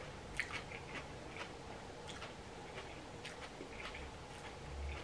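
Faint, close mouth sounds of a person slurping and chewing ramen noodles: scattered soft wet smacks and clicks.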